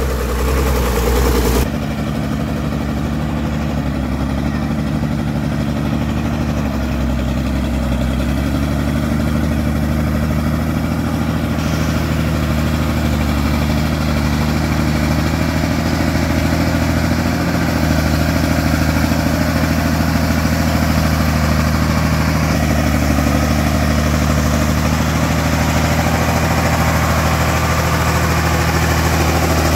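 Engine of a homemade wood-hauling truck running at a steady, unchanging pitch.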